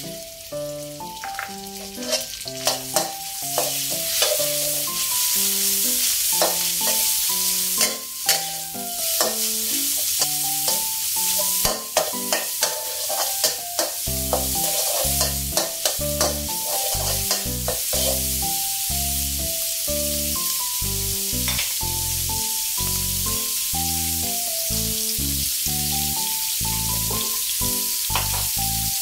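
Food sizzling as it is stir-fried in a pan, with many sharp clicks of the spatula striking and scraping the pan, over background music. A bass line joins the music about halfway through.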